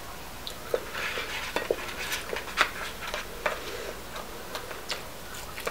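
Close-miked eating sounds: chewing French fries and picking them off a plate, heard as a scatter of small clicks and crackles with soft rustles between them.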